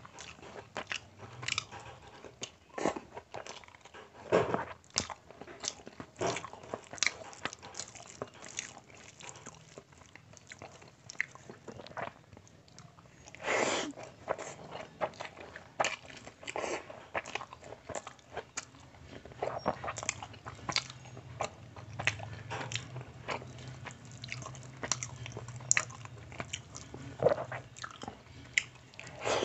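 A person eating rice and mutton curry by hand: wet chewing and mouth smacks in many short, irregular clicks, with one longer, louder sound about halfway through.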